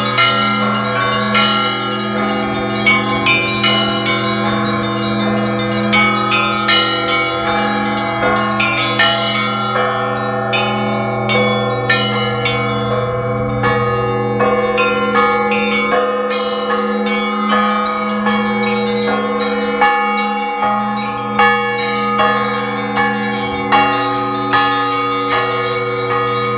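Russian Orthodox church bells rung in Bright Week (Easter week) ringing: small bells struck in quick repeating rhythmic figures over the long hum of the deeper bells. The deepest bell falls silent for several seconds about midway, then sounds again.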